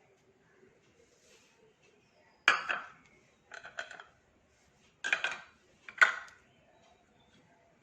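A spoon clinking and tapping against a bowl a few times, with a cluster of lighter taps in the middle, as spices are spooned onto the prawns.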